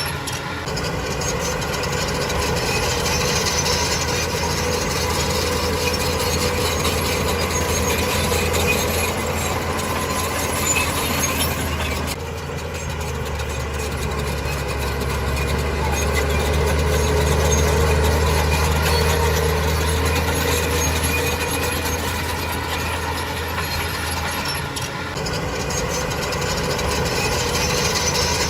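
Diesel engine of heavy earthmoving machinery running steadily under work, with a deep hum. The sound shifts abruptly twice, about twelve and twenty-five seconds in.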